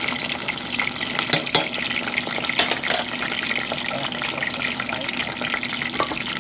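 Eggplant slices deep-frying in hot oil in a stainless steel pot: steady sizzling and crackling, with a few sharper clicks between about one and three seconds in.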